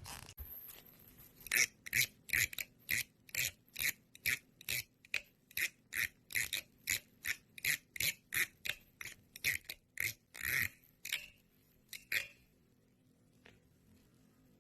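A thumb or fingernail scraped again and again along the teeth of a comb, a rasping stroke about twice a second. It starts a second or so in and stops about three quarters of the way through. This is the comb sound said to make cats gag.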